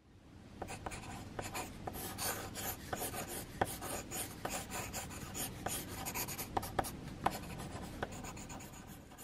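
Pencil scratching on paper in quick, short sketching strokes, with a few sharper taps of the lead among them. It fades in over the first second.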